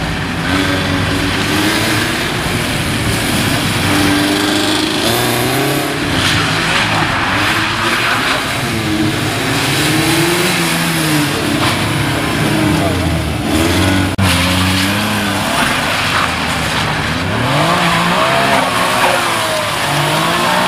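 Car engines revving up and down again and again as cars accelerate, brake and turn hard around the cones of a motorkhana test.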